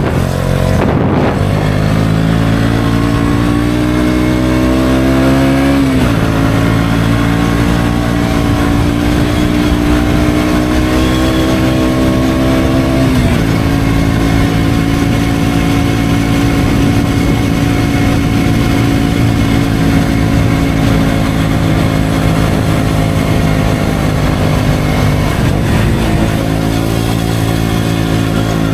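KTM Duke 125 single-cylinder engine through an Akrapovic exhaust, accelerating with the pitch climbing, dropping sharply at two upshifts about 6 and 13 seconds in, then holding a steady cruise with a brief dip and pick-up near the end.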